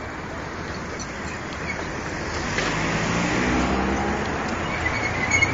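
Street traffic noise with a car driving close past, its engine sound swelling and fading about halfway through.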